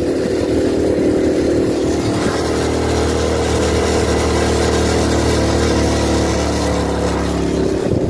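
Motorcycle engine running steadily as the bike rides along, with wind rushing over the microphone.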